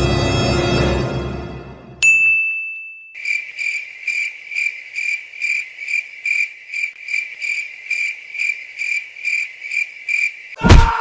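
Eerie music fading out, then a single bright ding about two seconds in, followed by a cricket chirping sound effect: a regular high trill of about three chirps a second. A loud thump comes near the end.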